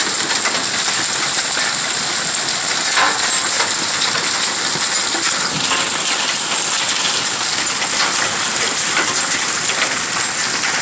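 Heavy rain mixed with hail pelting a concrete patio, a pool and a garden: a steady dense hiss with scattered sharp clicks of hailstones striking.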